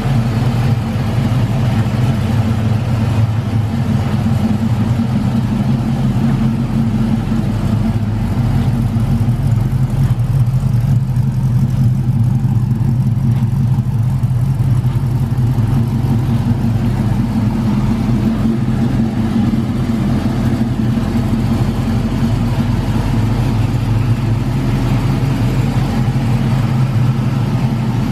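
1969 Chevrolet Camaro SS restomod's LS1 5.7-litre V8 idling steadily, a low, even exhaust note with no revving.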